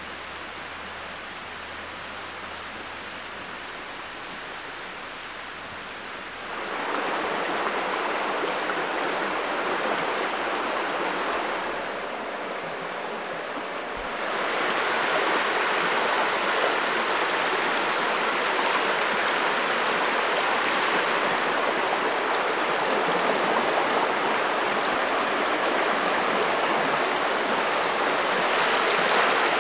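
Shallow, rocky river rushing over stones, a steady noise of running water. It grows louder about six seconds in and again a little past the middle.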